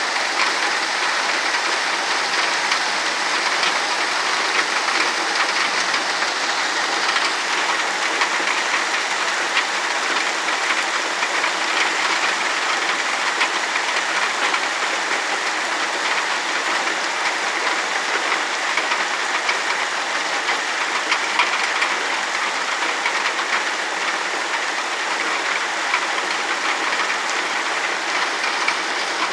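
Heavy rain falling steadily, a dense even wash of drops with no break or let-up.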